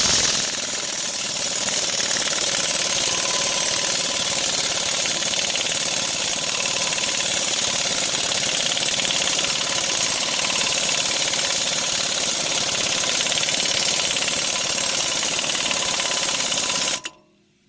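Pneumatic impact wrench running steadily for about seventeen seconds, spinning the nut on a lug-stud installer tool to draw a new wheel stud into the hub; it cuts off suddenly near the end.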